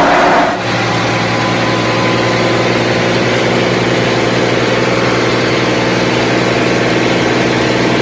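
Half a second of the belt-driven wheat thresher running, then the Al-Ghazi (Fiat 480) tractor's diesel engine running at a steady speed, heard close to its open radiator filler.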